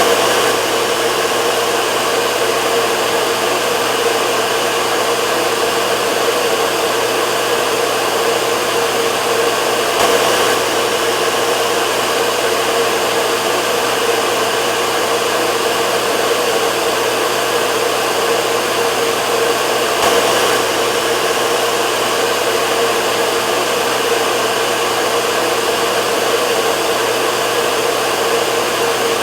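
Hair dryer running steadily: an even rushing blow of air with a constant hum underneath.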